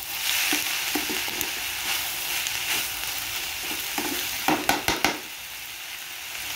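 Chopped onion, capsicum and curry leaves sizzling in hot oil in a metal kadai, stirred with a metal spatula that scrapes and clinks against the pan. The sizzle is a steady hiss, with a quick run of clinks about four and a half seconds in.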